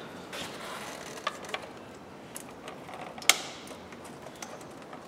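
Scattered light clicks and taps of plastic hoses, clips and fittings being handled in a car's engine bay, with one sharper click about three seconds in.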